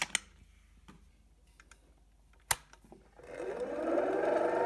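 Light metal clicks as a portafilter is seated under a Titus coffee grinder, then one sharp click about two and a half seconds in. The grinder's motor then starts, its whine rising in pitch as it spins up and settling to a steady run near the end.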